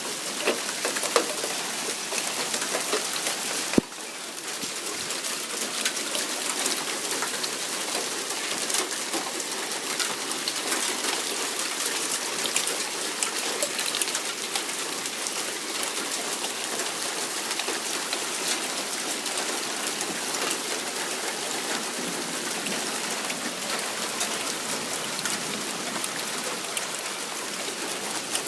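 Heavy rain falling in a storm: a dense, steady hiss dotted with many fine ticks of drops striking. There is a single sharp click about four seconds in.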